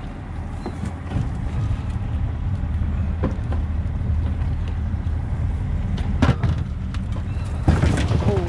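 Engine running steadily with a low hum, a little louder after about a second, with a few knocks and rattles about six and eight seconds in.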